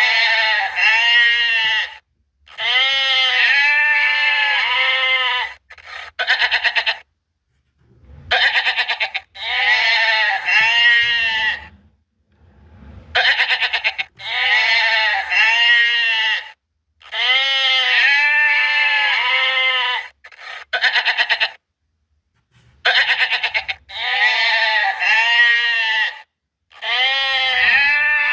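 Goats bleating: a string of loud, quavering bleats, each one to three seconds long, with abrupt silent gaps between them.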